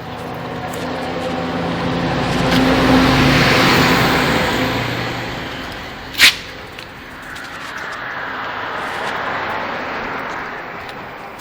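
A motor vehicle passing by, its noise swelling and fading over several seconds, followed by a sharp click and a second, fainter vehicle passing.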